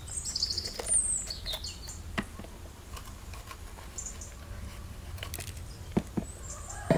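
Small birds chirping in short high calls, busiest in the first couple of seconds. A few sharp clicks and knocks come from a knife cutting the cores out of bell peppers over a plastic bowl, with two louder knocks near the end.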